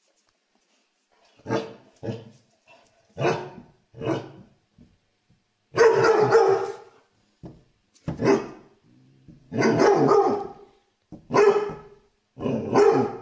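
A dog barking at a cat, about nine times in irregular bursts. Most barks are short; two, about six and ten seconds in, are longer and drawn out.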